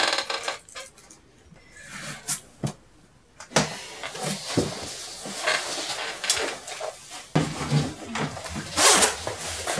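Objects being handled indoors: a few sharp knocks and clicks, then rustling and shuffling with more scattered knocks.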